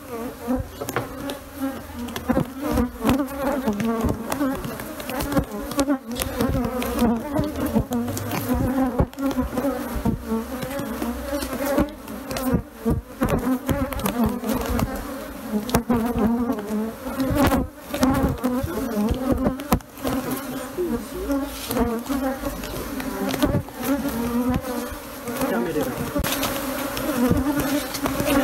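A large swarm of Africanized honeybees buzzing densely around their exposed comb as it is handled, the buzz wavering in pitch, with frequent short knocks mixed in.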